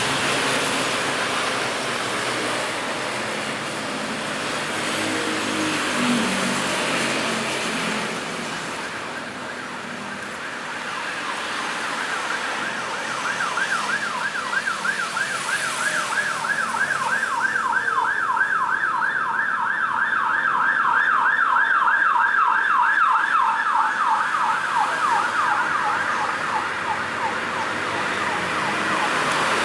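Road traffic noise, then an emergency vehicle's siren in a fast yelp, its pitch swinging up and down several times a second. It comes in about twelve seconds in, grows louder, then drops slightly in pitch and fades near the end as the vehicle passes.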